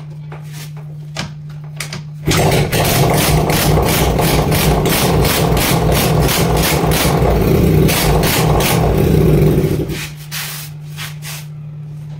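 TVS Jupiter scooter's freshly rebuilt single-cylinder four-stroke engine running with its silencer off. It idles, is revved hard and held loud for about eight seconds from about two seconds in, then drops back to idle. The revving is done to check by oil spatter on paper whether the piston is seating properly.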